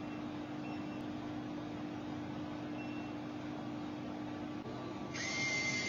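Steady hum of a refrigerated drink vending machine running. About five seconds in, a short motor whirr with a whine as the bill acceptor draws in a banknote.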